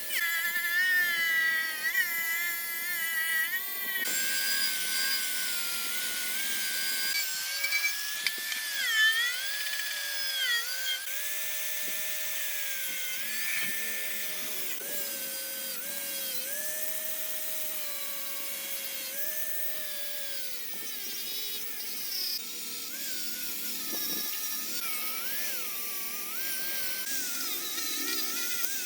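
Small electric power tool such as a drill or rotary tool running with a high whine. Its pitch dips and recovers over and over as it is pressed into the work and eased off.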